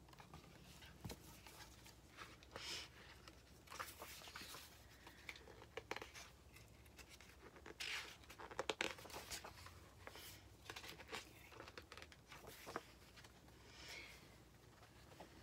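Faint rustling and flipping of a hardcover picture book's paper pages being handled and turned, a series of irregular soft swishes and taps.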